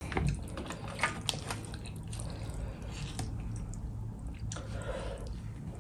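Bare hands tearing apart a whole fish in thick spicy gravy: wet squishing and small crackles, with gravy dripping, most pronounced in the first second or so.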